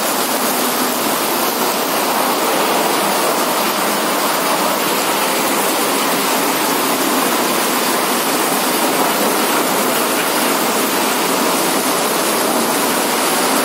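Heavy rain pouring down steadily as an even, unbroken hiss.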